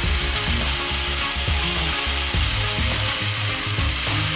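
Angle grinder running, its spinning disc cutting into a giant ball of rubber bands: a steady high-pitched whine over a rough grinding noise.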